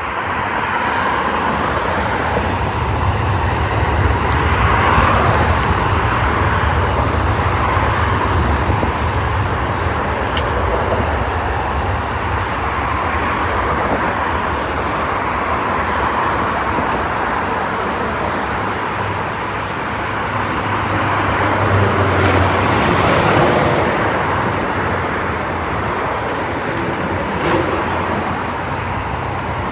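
Airbus A380's four jet engines at takeoff thrust during the takeoff roll: a loud, steady, deep roar that steps up in level at the start, with road traffic passing close by.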